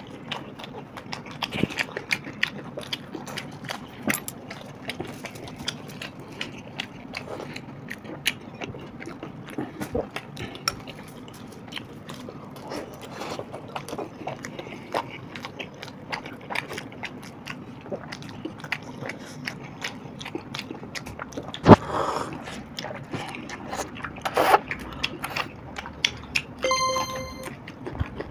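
Close-up eating sounds: chewing, lip smacking and flatbread being torn by hand, with many small clicks throughout. A sharp knock comes about three-quarters of the way through. Near the end a brief bell-like chime sounds, a sound effect marking another paratha finished.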